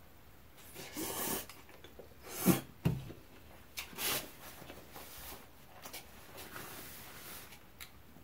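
Mouth sounds of eating pad Thai rice noodles: a few short slurping and sniffing noises, the loudest about two and a half seconds in, with quiet chewing between.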